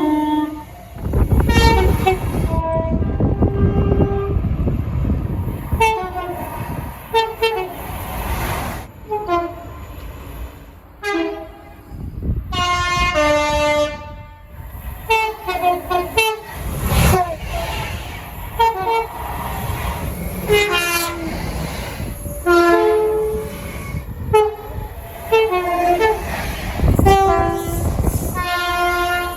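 A string of locomotive horn blasts from several different trains, each sounding a multi-note chord. Some blasts are short toots and some are held for a second or two, with the pitch of the chord changing from clip to clip. A low rumble of passing trains sits under several of the blasts.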